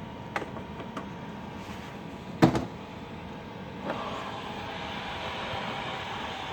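12 V diesel heater running: a steady whir with a faint tone. A few light clicks come early on, a sharp knock about two and a half seconds in, and after a click near four seconds the whir grows louder and brighter.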